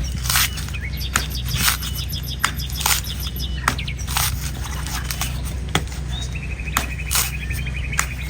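A sharp knife chopping into a dry, hard coconut husk, about a dozen strokes at a steady pace of one every half second to a second. Birds chirp throughout, one trills near the end, and a steady low hum runs underneath.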